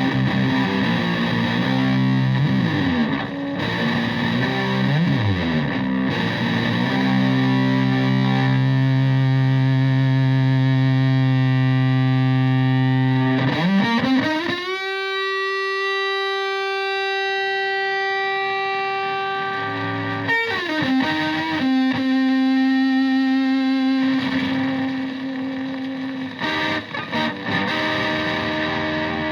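Stratocaster with single-coil pickups through a Marshall Supa Fuzz (Tone Bender MKII-style) fuzz pedal into a Fender Twin Reverb-style amp, playing long sustaining fuzzed notes with string bends. About halfway through, a slide up lands on a single note held for several seconds, followed by shorter, choppier notes near the end.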